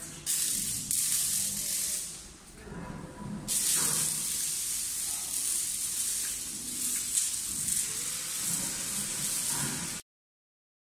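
PVC sheet production line running, heard as a steady high hiss with a low rumble beneath; the hiss thins for a moment about two seconds in, comes back sharply, and cuts off suddenly near the end.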